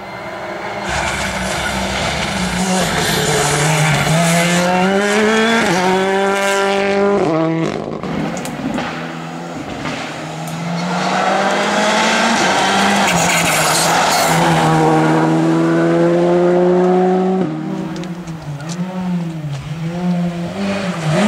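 Rally car engine at full throttle, its pitch climbing in steps as it shifts up through the gears, cutting off sharply about seven seconds in. It climbs hard again and cuts off again, then rises and falls quickly several times near the end as the throttle is pumped on and off.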